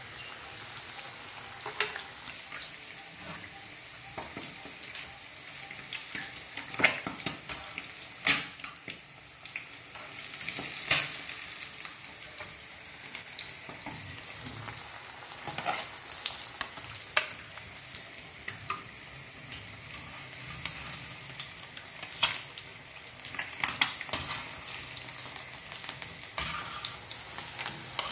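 Besan-coated eggs shallow-frying in hot oil in a pan: a steady sizzle full of crackling, with a few louder sharp pops.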